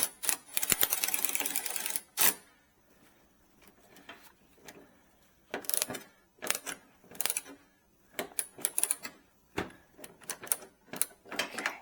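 Hand work on plastic headlight trim and clips: a quick run of sharp clicks and rattles for about a second and a half, then scattered clicks and knocks as the broken clip is worked into place.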